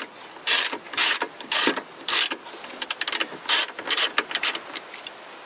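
Hand ratchet clicking in short bursts, about two a second, as its handle is swung back and forth to loosen the battery hold-down bolt.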